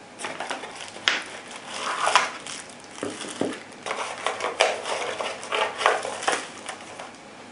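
Packaging being handled: a busy run of crinkles, rustles and light clicks as items are taken out of a product box.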